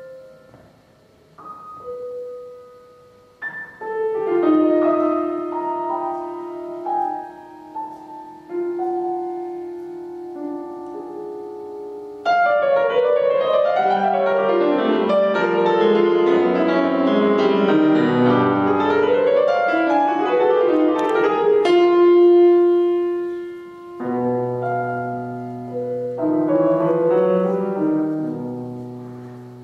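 Grand piano playing a classical solo piece: sparse ringing notes and chords at first, then suddenly a dense, loud passage of fast rising and falling runs from a little before halfway. After a single held note it ends in sustained chords that fade away.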